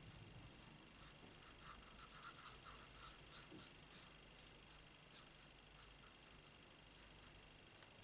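Faint, quick scratching of a Stampin' Blends alcohol marker's tip on stamped cardstock as birds are coloured in: many short strokes, most of them in the first half and fewer toward the end.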